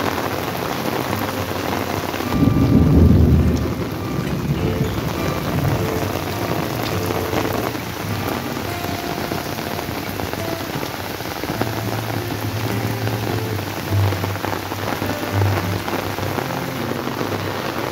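Heavy rain falling steadily. A short, loud low rumble of thunder comes about two and a half seconds in.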